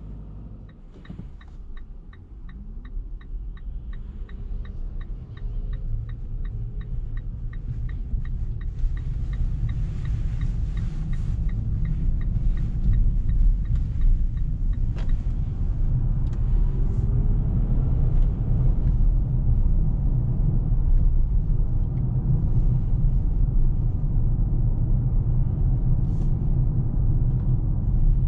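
Mitsubishi Eclipse Cross PHEV's turn-signal indicator ticking steadily, a little over two ticks a second, stopping about halfway through as the turn is made. Low road and tyre rumble in the cabin then grows louder as the car gathers speed.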